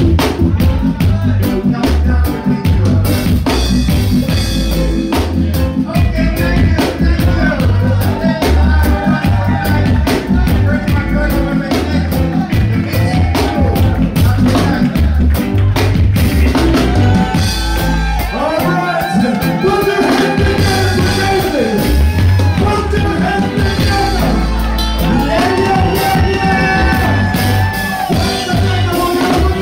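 Reggae song with singing over a heavy, pulsing bass line; the vocal melody grows stronger about halfway through.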